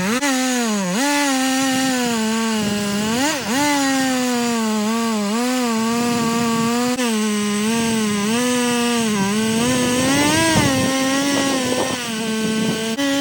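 Stihl two-stroke chainsaw running at high revs under load as it rips a green Douglas fir log on an Alaskan chainsaw mill, with a steady sawing hiss. The engine pitch sags and recovers several times, most sharply about a second in and again near the middle, as the chain bogs in the cut.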